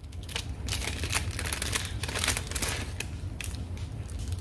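A small plastic bag crinkling and rustling in the hands as it is torn open, a continuous run of small crackles.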